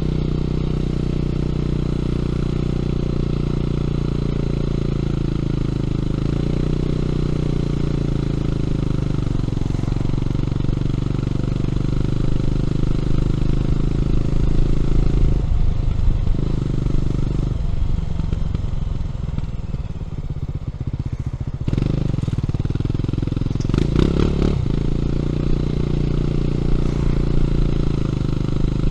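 Honda CB400SS single-cylinder engine running through a Yamamoto A-spec aftermarket exhaust on the move. The note is steady for the first half, then shifts for several seconds to a slower, more separate beat before steadying again. A brief sharp noise comes a few seconds before the end.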